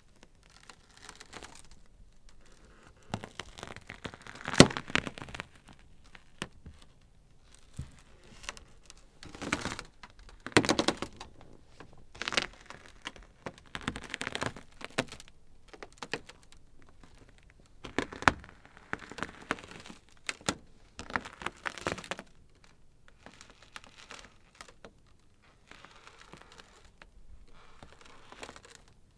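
Ice crackling and popping: irregular sharp cracks and crinkles, some in quick clusters, with a few louder snaps.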